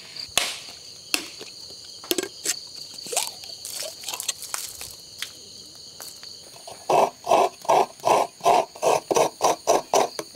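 Insects trilling steadily with a few scattered sharp knocks. About seven seconds in, a loud, regular rasping starts, about three strokes a second: half a coconut being scraped on a traditional floor-mounted coconut grater.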